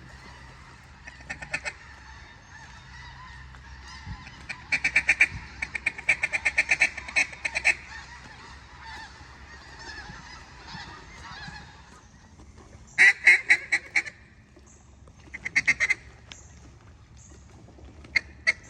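Hand-blown mallard duck calls sounding in quick runs of evenly spaced, loud quacks. There are four separate runs, the longest lasting about three seconds, calling to ducks working over the timber.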